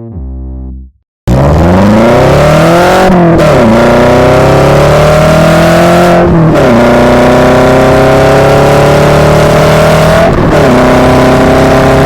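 VW Passat W8's 4.0-litre W8 engine, breathing through a full aftermarket exhaust from the cat back, accelerating hard through the gears of its six-speed manual. The engine note climbs in each gear and drops at three upshifts.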